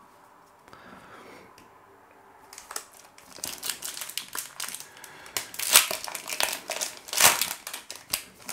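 Crimped wrapper of a 2021 Topps Opening Day baseball card pack crinkling and tearing open in the hands. It starts about three seconds in, with two loud rips near the middle and near the end.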